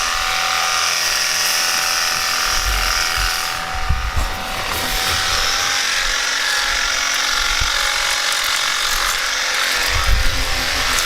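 Cordless handheld pressure washer running: the pump motor's steady whine under the hiss of the water jet, with a brief break in the spray about four seconds in.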